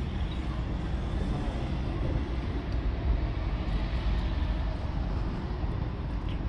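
Steady low rumble of distant engine noise, from vehicles and an aircraft passing over.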